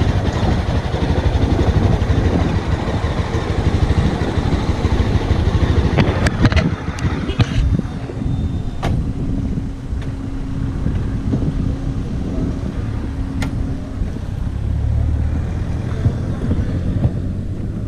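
Mahindra Mojo 300 motorcycle running on the road, with heavy rushing noise over the engine at first. About six seconds in the noise drops and a steadier engine hum carries on, with a few sharp clicks.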